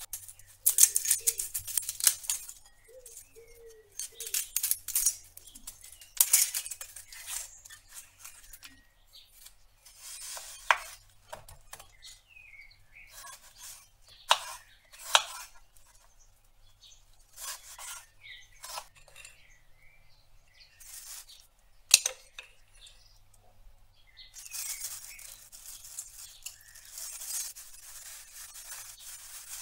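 A kitchen knife working an onion: dry papery skin crackling and tearing in quick clusters as it is peeled, then single knife strokes cutting through the onion and knocking on a wooden cutting board, the sharpest about two-thirds of the way in. Near the end a plastic bag with flour in it rustles steadily as it is handled.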